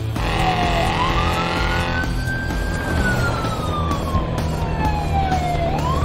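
Police siren wailing: one slow rise and fall in pitch, starting to rise again near the end.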